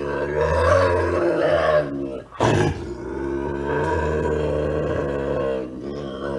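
Bobcat growling: a long low growl, a short sharp snarl about two and a half seconds in, then a second long growl that fades near the end.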